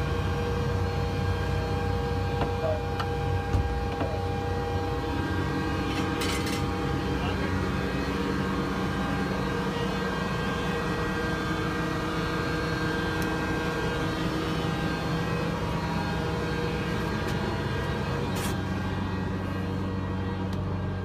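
M109A6 Paladin self-propelled howitzer's diesel engine running steadily, a constant engine drone with a fixed hum. A few sharp clicks about six seconds in and again near the end.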